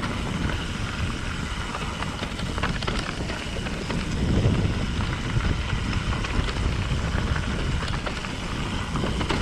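Mountain bike rolling fast down a dirt singletrack: a steady rush of wind on the microphone mixed with the rumble of the tyres on dirt and a few light rattles from the bike.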